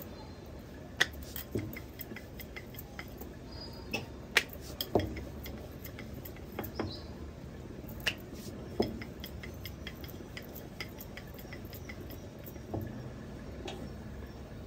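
Irregular clicks and knocks of kitchen utensils on a hard surface, with a few sharper clacks standing out, while chapati dough is being handled and rolled out.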